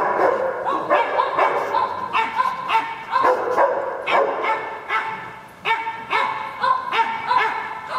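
Small dogs barking and yipping over and over, about two to three barks a second, with a brief lull a little past halfway.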